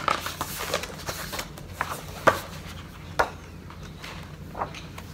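Pages of a coloring book being turned by hand, a short paper flap or swish with each turn, about five in all at uneven intervals.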